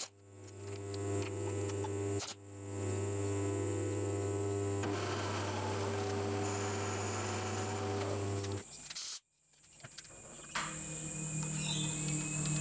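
Milling machine running steadily, its end mill cutting a counterbore in a steel clamp jaw, with rougher cutting noise in the middle. The hum breaks off abruptly a few times, and after a brief gap about two-thirds in it comes back at a lower pitch.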